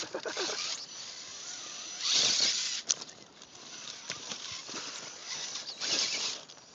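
Electric Axial XR-10 RC rock crawler climbing and tumbling on bare rock: tyres and chassis scrabbling and scraping, with scattered clicks and two louder bursts of hiss, about two seconds in and near the end.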